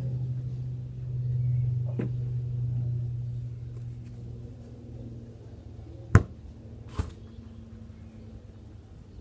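A low steady hum that swells and then fades over the first few seconds, followed by two sharp knocks about a second apart, the first much the loudest.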